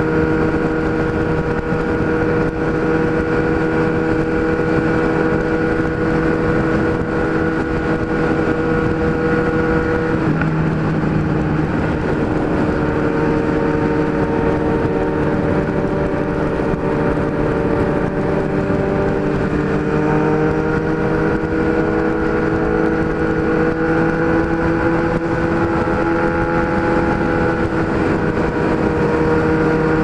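Kawasaki Z1000 inline-four running through an Atalla 4-into-1 straight-pipe exhaust at steady highway cruising revs. About ten seconds in there is a short break in the engine note, like a gear change, and afterwards the pitch climbs slowly.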